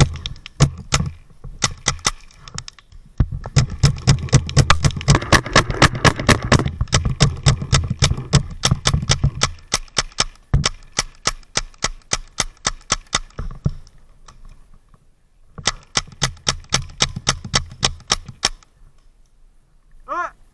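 Close-range rapid fire from a paintball or airsoft gun, in long strings of many sharp shots a second. A long stream runs from about three to ten seconds in, with a single sharper crack just after it, and a second stream comes near the end.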